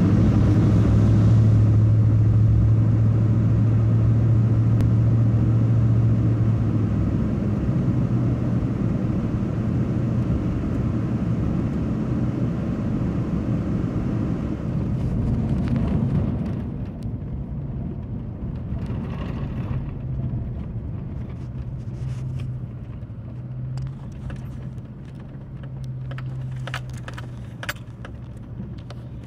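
Vehicle driving on a gravel and dirt road, heard from inside the cabin: a steady low engine drone with road and tyre noise. It becomes quieter about halfway through, and scattered sharp ticks come in near the end.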